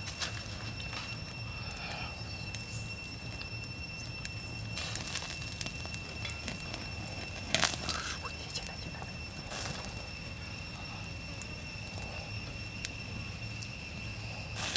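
Small wood fire crackling and popping, with scattered sharp pops, the loudest a little past halfway. A steady high-pitched drone runs underneath.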